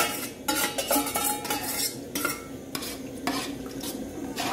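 A spoon stirring and scraping in a metal cooking pot of stew, clinking against the sides in irregular strokes, after a sharp knock at the very start.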